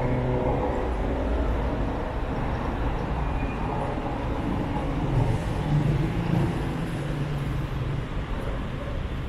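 Road traffic: a steady low rumble of vehicles, with a passing car's engine hum between about five and eight seconds in.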